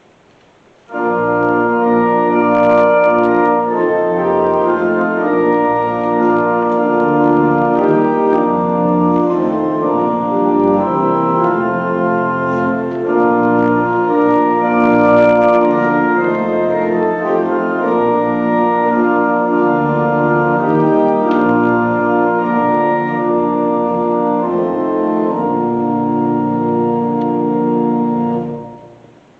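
Pipe organ playing a slow passage of held chords. It starts about a second in and fades out just before the end.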